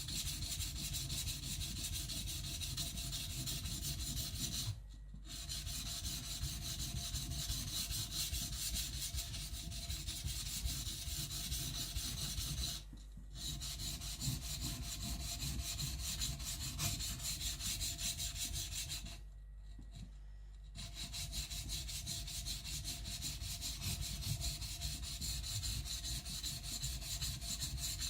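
Kiridashi blade scraped back and forth on a wet whetstone in quick, continuous strokes, grinding the bevel thin, with three short pauses.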